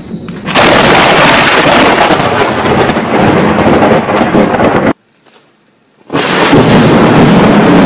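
Thunder from close lightning strikes in a thunderstorm, very loud and sustained. It breaks off abruptly about five seconds in for about a second, then resumes at full loudness.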